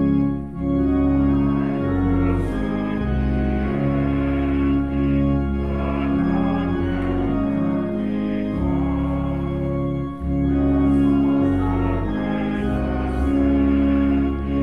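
Church organ playing slow sustained hymn chords over a held pedal bass, the chords changing every second or two.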